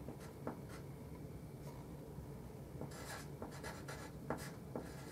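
Faint scratching of handwriting: short pen strokes scattered through, with a cluster of strokes about three seconds in.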